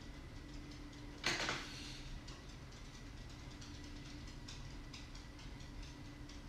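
Quiet room tone with a faint steady hum, one brief noise about a second in, and faint scattered ticks.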